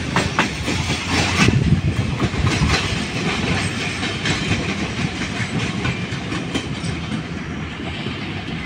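Passenger coaches of a Pakistan Railways express train running through the station without stopping, their wheels clattering over the rail joints in an irregular clickety-clack over a steady rumble. The clatter thins and grows quieter toward the end as the last coaches pass.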